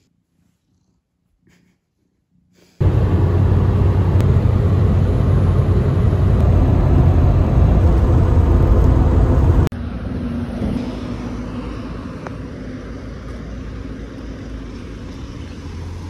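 Near silence for about three seconds, then a car driving at speed heard from inside the cabin: a loud steady rumble of road and wind noise. About ten seconds in it cuts to a quieter steady rumble.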